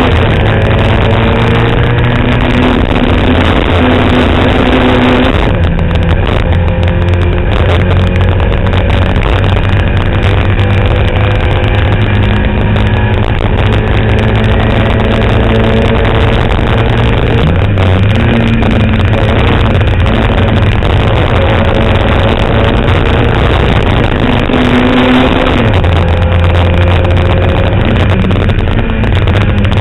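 Fiat 127 Abarth's four-cylinder race engine heard from inside the car under hard acceleration. Its pitch climbs steadily through the revs and breaks off at gear changes or lifts about 6, 18 and 26 seconds in. Loud throughout.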